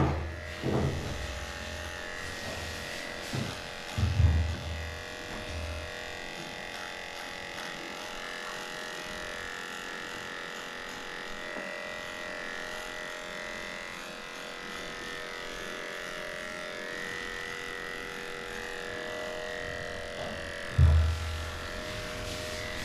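Cordless dog grooming clipper with an 8.5 blade running at a steady pitch as it shaves off a matted coat. A couple of low thumps come about four seconds in and near the end.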